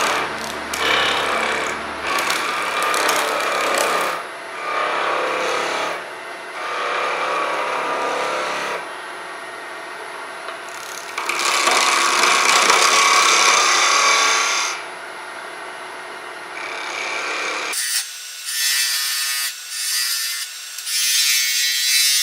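Skew chisel cutting a small wooden spindle spinning on a wood lathe at about 2000 RPM. The cuts come and go in stretches of a few seconds, with quieter gaps between them.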